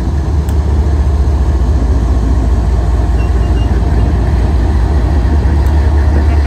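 GE ES44DC diesel locomotive rolling slowly past at close range, its engine giving a loud, steady low rumble. A few faint sharp ticks sound now and then.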